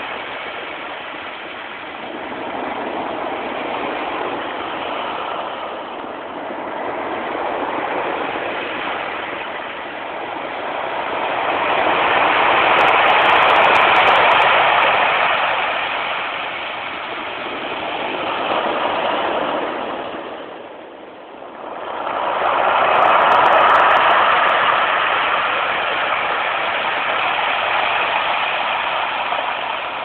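Ocean surf breaking in a small cove and washing up the beach: a continuous rushing noise that swells and fades with each set of waves. It grows loudest twice, around the middle and again after a short lull later on.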